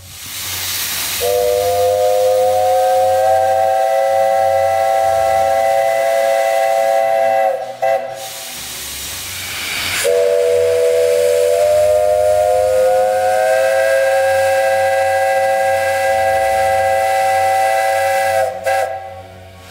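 Steam whistle of JNR Class 8620 locomotive 58654 sounding two long blasts of a low, close-toned chord, the first about six seconds and the second about eight, each opened by a rush of steam hiss. The second blast slides up slightly in pitch as it opens fully.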